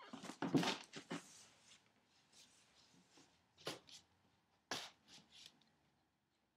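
Cats moving about close to the microphone on a hardwood floor: scuffling and rustling for the first second and a half, then a few short scrapes or knocks near the middle, fading out before the end.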